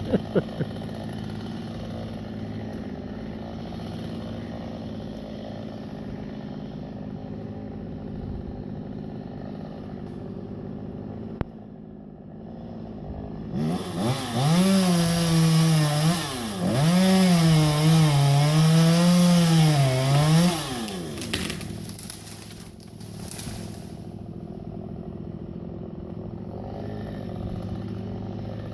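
Chainsaw idling, then revved hard for about seven seconds, its pitch sagging and recovering as the chain bites into the wood, before dropping back to idle.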